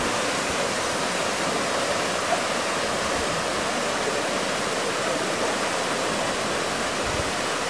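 Waterfall spilling over volcanic rock into a pool: a steady rush of falling water.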